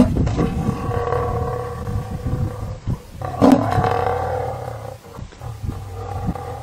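A large wild animal calling twice in long, drawn-out, pitched moans: the first lasts nearly three seconds, the second a little under two, then a fainter tail.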